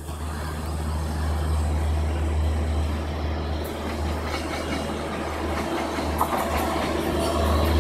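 An approaching electric express train, a WAP-7 locomotive hauling LHB coaches, heard as a steady low rumble that grows gradually louder as it nears.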